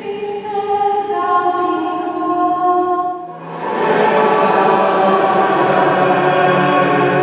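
Choir singing a slow sacred chant in long held notes; about three and a half seconds in, more voices come in and the singing grows fuller and louder.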